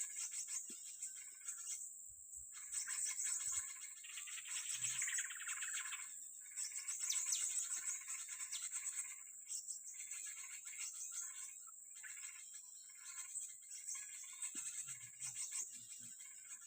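Busy high-pitched bird chirping and twittering over a steady high insect buzz, with a falling trilled call about four to six seconds in.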